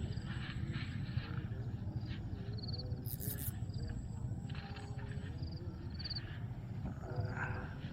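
Outdoor ambience at the water's edge: a steady low rumble, with short high chirps several times and a brief hiss about three seconds in.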